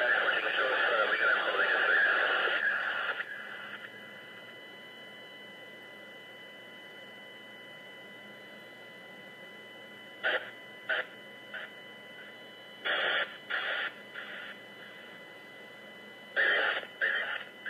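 Nueces County live scanner radio feed streaming from a web player: about three seconds of radio static at the start, then a faint steady whine with short chopped bursts of static squelch in three clusters, near the middle, a little later, and near the end.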